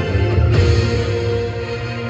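Music with sustained tones over a deep bass, swelling about half a second in.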